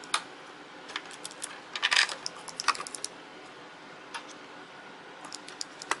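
Light metallic clicks and taps as a laptop's copper heat-pipe heatsink is set down and seated over the CPU. A quick cluster of clicks comes about two seconds in, and a few more near the end.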